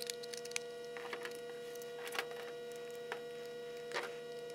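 A steady hum, with faint light clicks and ticks scattered through it as small screws and a T7 screwdriver are handled on the plastic case of a portable ADS-B receiver during reassembly.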